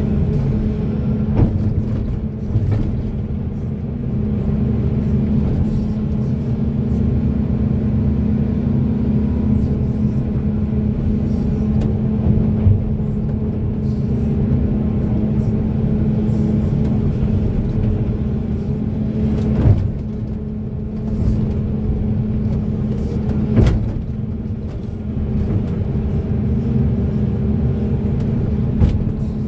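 Diesel engine of a large Caterpillar hydraulic excavator running steadily under load, heard from inside the operator's cab, with a few sharp knocks.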